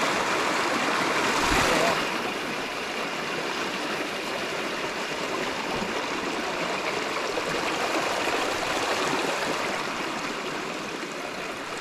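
Mountain stream running: a steady, even rush of flowing water, a little louder for the first two seconds.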